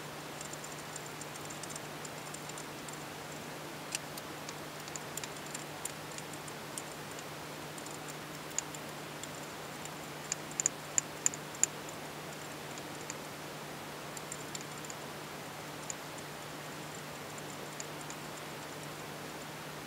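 Sparse light metallic clicks and taps of hands and small tools working on the rocker gear atop a Fiat 500 engine's cylinder head, with a quick run of about five sharp clicks about halfway through, over a steady low hum.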